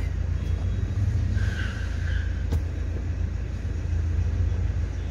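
Mahindra Xylo engine idling with a steady low rumble. A brief higher squeal sounds about a second and a half in, and a single sharp click follows a second later.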